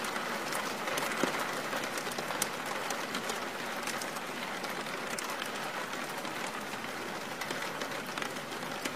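Steady rain falling: an even hiss with scattered light drop ticks.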